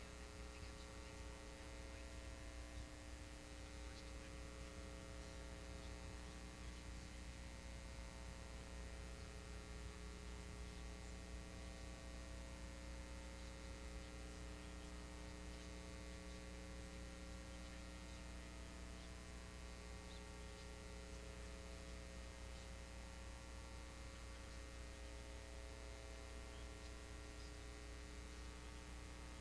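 Faint, steady electrical mains hum with a stack of evenly spaced tones and light hiss, unchanging throughout: the bare noise floor of a blank stretch in an old TV recording, with no programme sound.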